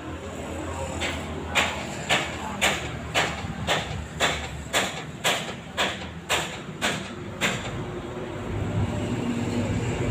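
A run of about thirteen sharp knocks at an even two per second, each with a short ringing tail, stopping after about seven seconds; a low rumble builds near the end.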